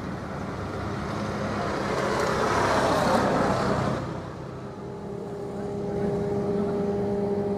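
A passenger ship's whistle sounds one long, steady blast starting about five seconds in, a signal given as the ship manoeuvres into harbour. Before it, a rushing noise swells and fades over a steady background hum.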